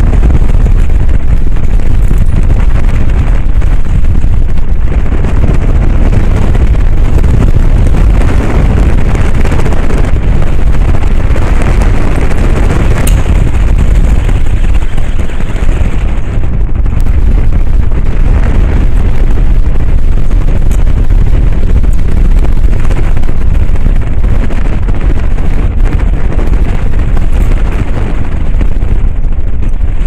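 Strong wind buffeting the camera's microphone, a loud, continuous low rumble that overloads the recording.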